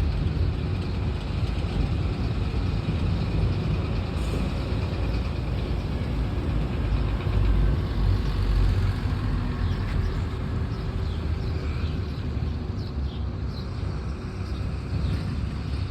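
Steady low rumble of heavy trucks and a digger running their engines, the noise that served as an early-morning wake-up.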